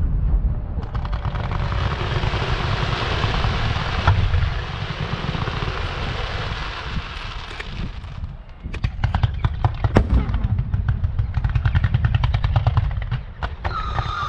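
Fireworks and firecrackers going off in a dense crackling barrage. After about eight seconds it breaks into a fast run of separate sharp cracks, with one louder bang near the ten-second mark.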